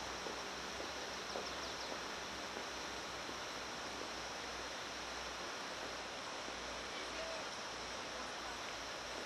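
Steady, even outdoor background hiss with no distinct sounds standing out.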